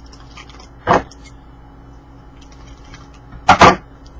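Hockey cards and pack wrappers being handled: faint rustles and clicks, with one sharp loud swish about a second in and two more close together near the end.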